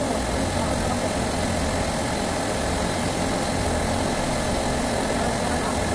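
Steady drone of running refrigeration compressors, with the hiss of a brazing torch flame as a valve joint is heated for brazing.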